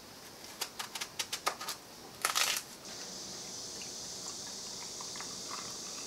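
A small knife peeling a peach: a quick run of light clicks and scrapes as the blade works through the skin, then one louder, brief scrape. A steady faint hiss follows.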